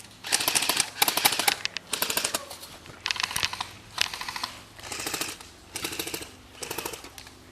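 Airsoft high-capacity magazine being wound by its thumb wheel, with repeated short runs of rapid ratcheting clicks, one stroke after another.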